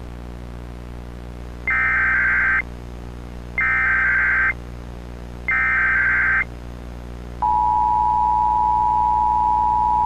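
Emergency Alert System tones: three bursts of SAME header data, each about a second long with about a second between them, which open the alert. Then, about seven seconds in, the steady two-tone EAS attention signal (853 and 960 Hz sounded together) begins and holds.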